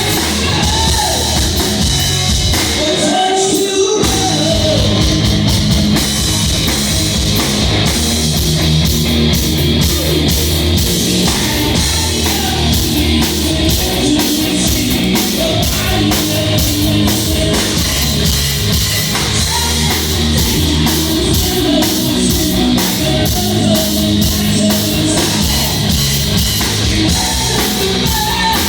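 Rock band playing live: drum kit, electric guitar and a singing voice, with a short break in the music about three seconds in.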